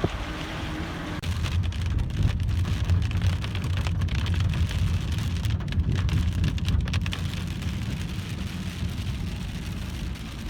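Heavy rain pouring down, a steady hiss with a low rumble underneath.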